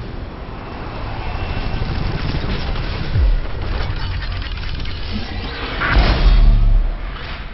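Cinematic title-sequence sound design: a dense whooshing rumble with music under it, a deep falling boom about three seconds in, and a heavier boom around six seconds in, the loudest moment, before it fades near the end.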